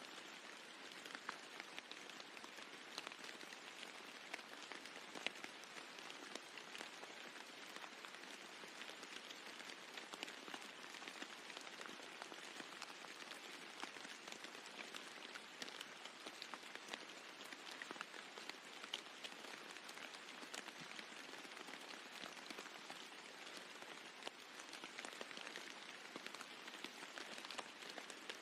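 Steady rain falling on a roof, with many separate drops ticking through an even hiss.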